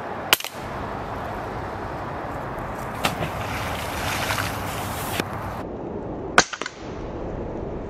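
Steady outdoor background hiss, broken by two sharp clicks about six seconds apart, each followed by a brief dropout, with a brighter hiss from about three to five seconds in.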